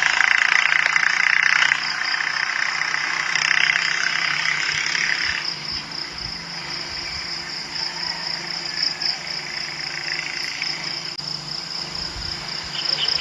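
Insects chirring in a steady high trill, over the low hum of a vehicle engine running. A rush of noise rises over them in the first couple of seconds and again around four to five seconds in.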